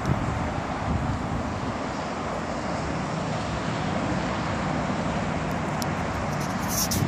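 Steady road traffic noise from a nearby street, with wind on the microphone.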